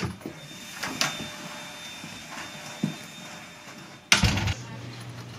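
Dorm room door with an electronic-lock lever handle being opened: a few sharp clicks and knocks from the handle and latch, then a louder thump a little after four seconds.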